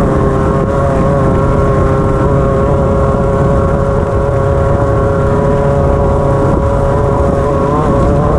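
Off-road race car's engine running at steady high revs, heard from inside the car, its pitch holding nearly level, over a dense low rumble.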